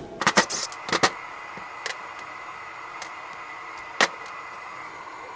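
A cordless driver backing screws out of a CAV DPA injection pump cover gives a quick run of clicks and short bursts. Then small metal parts click on the workbench, with one sharp clack about four seconds in, over a steady faint hum.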